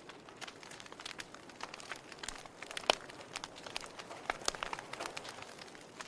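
Wood fire in a fireplace crackling, with irregular sharp pops; the loudest pop comes about three seconds in.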